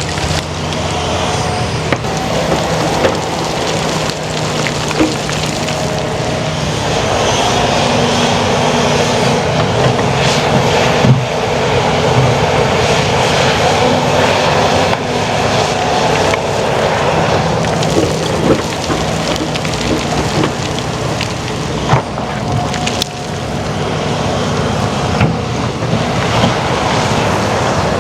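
Heavy diesel earthmoving machinery (excavator, bulldozer and dumptruck) working under load, the engine note rising and falling, with a few sharp metallic clanks and knocks.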